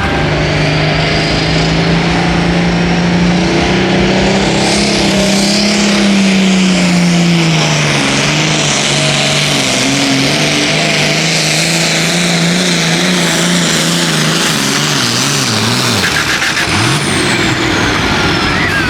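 Hot farm pulling tractor's diesel engine at full throttle during a sled pull. The engine note holds high and climbs a little over the first six seconds, then eases down and falls away after about fourteen seconds as the pull ends. A high whine drops in pitch near the end.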